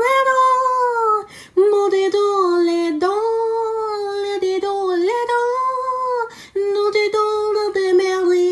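A high voice singing long, held wordless notes that glide slightly in pitch, with two short breaks for breath.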